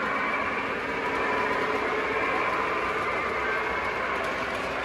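O gauge model freight cars rolling past on three-rail track, a steady rolling noise of metal wheels on the rails.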